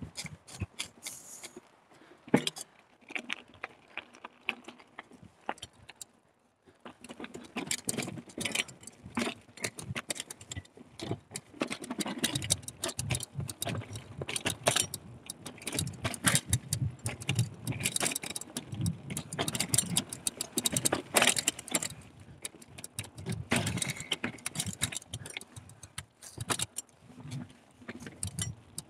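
Carrera Hellcat hardtail mountain bike clattering and rattling as it is ridden over rough trail, a dense irregular jangle of jolts and knocks. The first few seconds are quieter with a few sharp knocks, and the clatter becomes constant from about seven seconds in.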